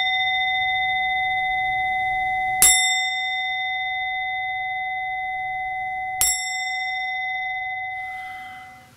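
A singing bowl struck twice, about two and a half and six seconds in, over the ringing of a strike just before. Each stroke rings on in a long, slowly fading tone, and the ringing dies away near the end.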